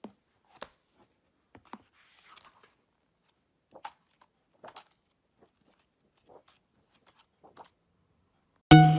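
Faint handling sounds of a large hardcover art book being touched and leafed through: scattered soft taps and brief page rustles. Loud music comes in just before the end.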